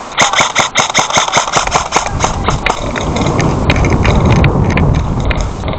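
An airsoft gun firing a fast string of shots, about seven a second, for about two seconds, then a few single shots. A loud low rushing noise follows.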